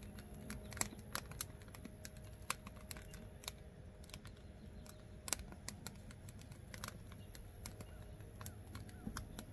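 Oak and charcoal fire burning in the open firebox of an offset barrel smoker, crackling with irregular sharp pops and ticks.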